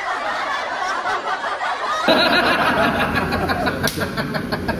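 A group of men laughing and chuckling, with quick pulses of laughter in the second half.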